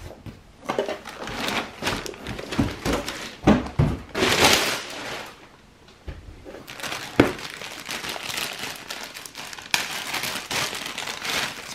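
Plastic packaging crinkling and rustling as hands unpack, along with cardboard boxes being handled, and one sharp knock about seven seconds in.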